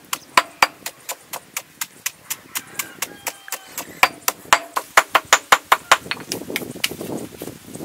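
Stone pestle pounding a spice paste in a stone mortar: sharp knocks at about three to four a second. About six seconds in, the knocks stop and give way to a rougher grinding scrape of pestle against paste and stone.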